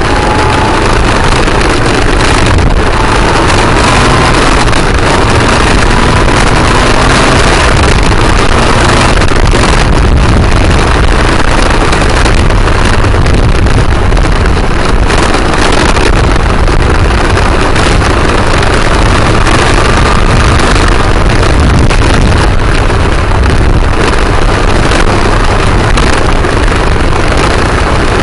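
Motorcycle on the move: a loud, steady rush of wind over the microphone mixed with the engine, whose pitch rises slowly in the first few seconds and again around the middle as it accelerates.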